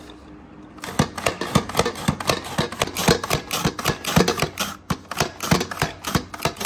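Hand-operated vegetable slicer cutting red onions, a rapid clacking of plastic parts and blade strokes, about three a second, starting about a second in.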